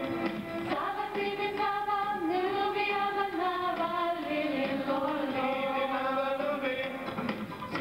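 A large stage ensemble singing together in long held notes that glide between pitches.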